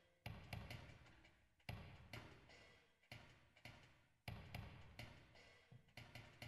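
Quiet, scattered clicks and ticks, each with a short echoing tail, from the electronic part of a piece for marimba and electronics while the marimba rests. The stronger clicks come about every second and a half, with fainter ticks between.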